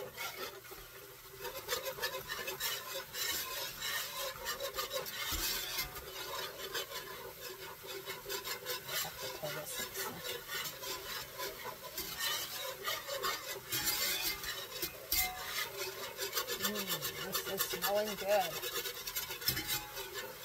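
A utensil stirring and scraping around a pan of meat gravy thickened with flour, in many short rasping strokes against the pan.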